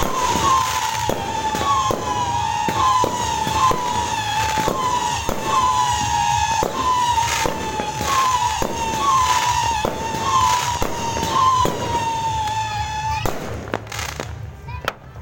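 Fireworks going off, with many sharp bangs and crackling pops. A high tone that drops slightly in pitch repeats about once a second over them and stops near the end.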